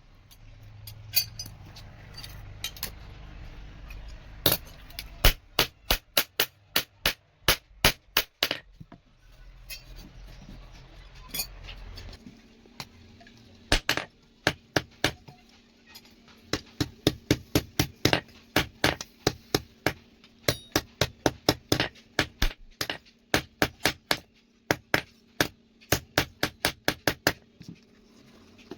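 Hammer blows on steel on an anvil, forging a small steel rod into a knife: sharp ringing strikes, single at first and then in fast runs of about three or four blows a second. A low rumble sits under the first half, and a steady hum comes in about halfway through.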